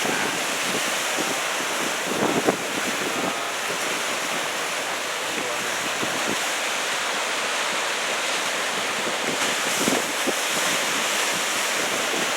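Big ocean surf, about 2 m waves from a typhoon swell, breaking and washing in a steady rush, with wind buffeting the microphone. The surf swells louder about two seconds in and again near ten seconds.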